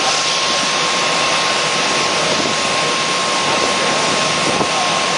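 Steady, loud rushing noise of a fire engine pumping water, with hose streams spraying. A steady high-pitched tone runs through it.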